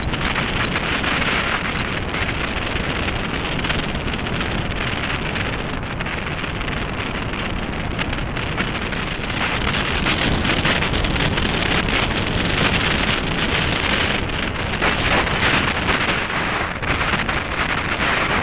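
Wind buffeting the microphone of a camera on a moving mountain bike, over the steady rolling noise of knobby tyres on a gravel track, with many small ticks and rattles from loose stones and the bike. It gets a little louder about halfway through.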